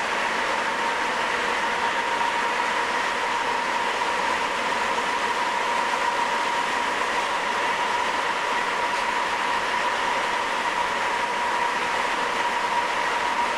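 Sapporo Municipal Subway Type 9000 train (Hitachi IGBT-VVVF control) running between stations at steady speed on its rubber tyres: an even rushing running noise with a steady whine near the middle of the range.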